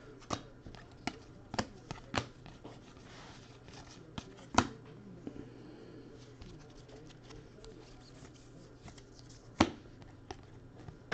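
Baseball trading cards handled and flipped through by hand: sharp card snaps and clicks every second or so, the loudest about four and a half seconds in and near the end, over a faint steady low hum.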